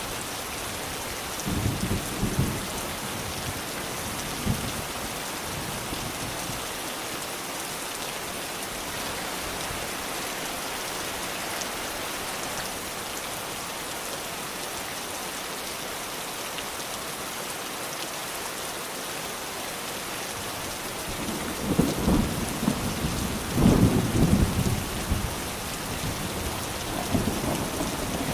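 Steady rain with low rolls of thunder: a short rumble about two seconds in, and a longer, louder one about three-quarters of the way through.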